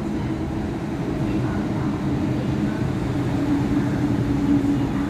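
MTR M-train, a Metro Cammell electric train, pulling out along the platform: a steady running rumble with a low hum.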